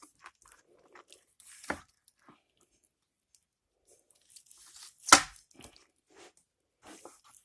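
Sharp knife cutting through raw chicken at the joint between thigh and back: scattered soft crunches and wet squishes of skin and cartilage, with one louder knock about five seconds in.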